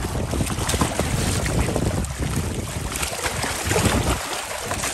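Wind buffeting the microphone with a low rumble, over water splashing and lapping among shoreline rocks.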